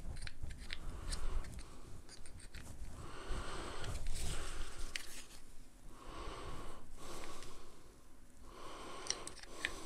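Slow, wheezy breathing through the nose close to the microphone, one long breath every two to three seconds, with small clicks and rubs from a black plastic monitor-lamp mounting clip being handled.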